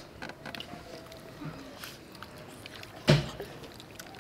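People eating at a table: soft chewing and small scattered clicks of a spoon and fingers on plates, with one short loud knock about three seconds in.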